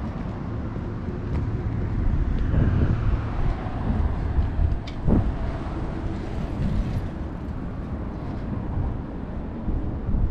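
Road traffic running past close by, swelling as vehicles pass, with a brief sharp clunk about five seconds in.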